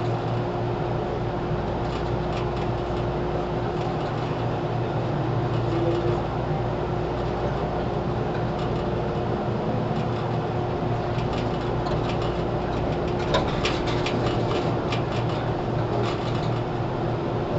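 Onboard running sound of a JR 413 series electric train, heard inside its KuMoHa 413 motor car: a steady rumble with a steady hum, and scattered clicks and knocks in the second half, the sharpest about thirteen seconds in.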